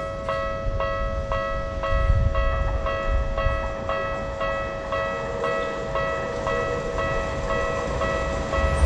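Japanese level-crossing warning bell ringing, an electronic two-tone chime struck about three times a second, over the low rumble of an approaching train. Right at the end the train reaches the crossing and its wheels and cars take over loudly.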